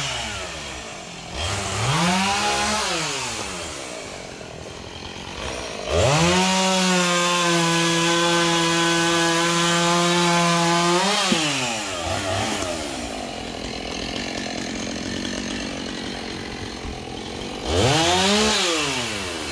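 Two-stroke chainsaw engine revved briefly, then held at full throttle for about five seconds before dropping back to idle, and revved again near the end.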